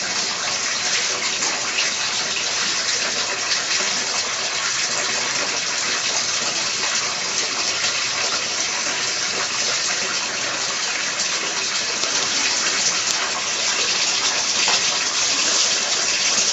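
Steady rush of running water pouring and splashing into a fish pond.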